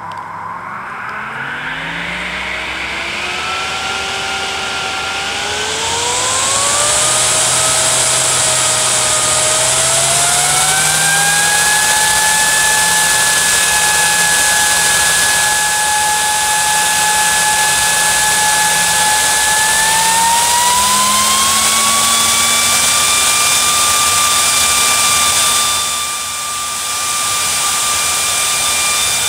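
EBM Papst Diaforce 120 (8315100198) high-power 48 V fan being stepped up in speed by a PWM controller: a loud rush of air with a blade whine that rises in stages and holds steady between steps. It is ramping from low speed to over 5 A of draw, and the sound dips briefly near the end.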